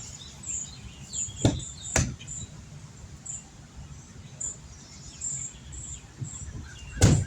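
Outdoor ambience: a steady low rumble with short, high chirps repeating about once a second, broken by three sharp knocks, the loudest near the end.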